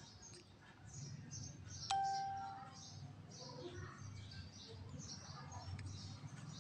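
A steel kitchen utensil clinks once about two seconds in, ringing briefly at one pitch. Small birds chirp in the background throughout.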